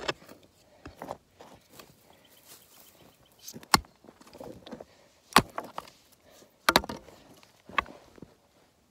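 Digging tool striking rocky soil and stones: a handful of sharp, irregular impacts, the loudest in the second half, with softer knocks and scraping of dirt and rock between them.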